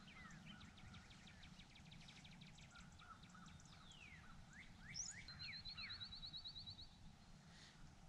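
Faint songbirds calling over a low steady outdoor background. A rapid run of short high chirps comes first, then several down-slurred notes, then a fast trill a little past the middle.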